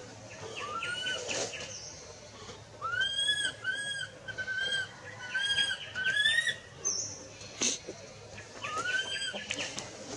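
Infant long-tailed macaque crying: a string of short, high, arching cries, coming fastest in a run of about eight between three and six and a half seconds in, the distress calls of a baby wanting its mother.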